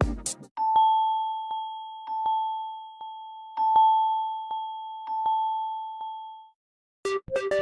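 Samsung Galaxy phone ringtones: an electronic dance-beat tone cuts off, then a plain single-note electronic chime rings for about six seconds, struck again several times and fading after each strike. A new keyboard melody tone starts near the end.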